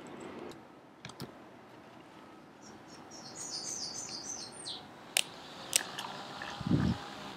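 A bird chirping a quick run of high, repeated notes for about two seconds, followed by two sharp clicks and a short low thump near the end.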